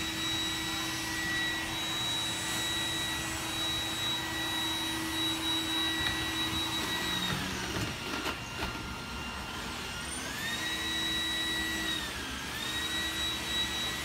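iRobot Roomba 980 robot vacuum running, its motor a steady whine over brush and suction noise. About halfway through the whine sinks in pitch for a couple of seconds, and again briefly near the end, rising back each time as the robot moves between hardwood and the doormat. The higher pitch is the motor giving more suction on the rug.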